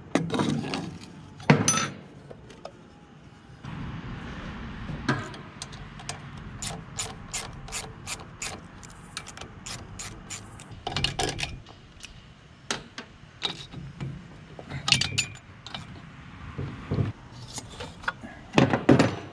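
Ratchet wrench clicking in runs of about two or three clicks a second, with pauses, as nuts on the cylinder head of an air-cooled VW 1600 dual-port engine are worked loose. A few louder clunks of metal tools on metal come in between, the loudest about a second and a half in.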